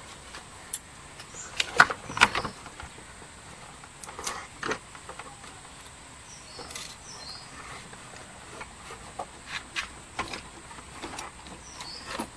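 Scattered sharp clicks and clinks of metal parts and fittings being handled while a scooter's starter motor is refitted, the loudest pair about two seconds in.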